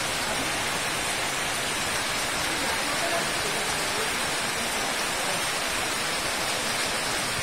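Heavy rain falling in a rainstorm: a steady, even hiss.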